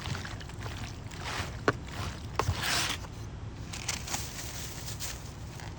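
Hands mixing raw chicken pieces with seasoning in a container: irregular handling noise with a few sharp knocks and brief scraping stretches.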